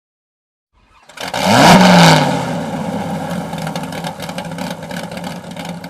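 Car engine revving: about a second and a half in, a quick rise in pitch, then a steady, slowly fading note.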